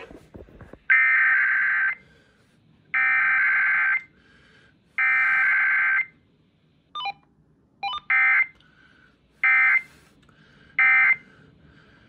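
Emergency Alert System Required Weekly Test data bursts played over an FM radio: three buzzing, warbling one-second SAME header bursts about a second apart, then two brief clicks and three shorter end-of-message bursts.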